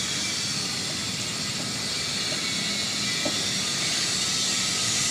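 Steady high-pitched drone of an insect chorus, crickets or cicadas calling together without a break.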